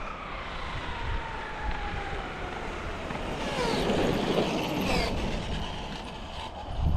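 Motor whine of a high-speed electric RC car on a speed run, falling in pitch early on, then rising and falling again as the car passes close by about four seconds in.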